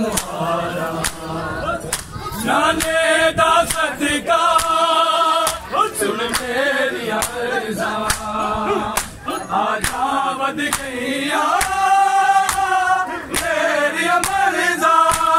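A group of men chanting a Punjabi noha, a Muharram lament, in unison. Sharp slaps of hands on bare chests (matam) come about once a second, keeping the beat.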